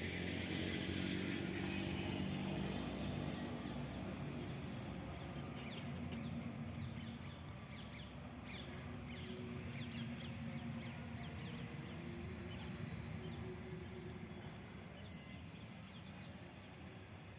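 Engine of a tractor-driven combine harvester running steadily, slowly growing fainter, with birds calling in quick short chirps from about five seconds in.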